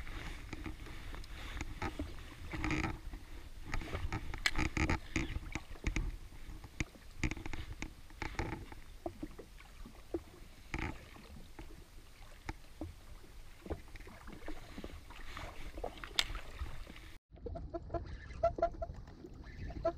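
Small choppy waves lapping and slapping against the hull of an anchored jet ski, with irregular knocks and clicks. About seventeen seconds in the sound changes abruptly and turns duller.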